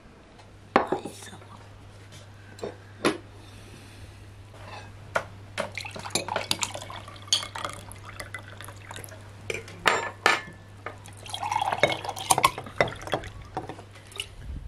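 Serving spoon and cutlery clinking against plates and a metal pan, with sharp knocks a little after the start. Later, a red fruit drink is poured from a glass jar into drinking glasses, splashing, among more clatter of dishes and glass.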